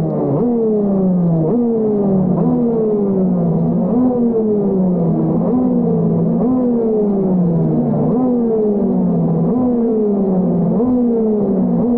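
TM Racing KZ-R1 125 cc two-stroke shifter-kart engine running loudly, its revs sagging and then jumping back up again about once a second.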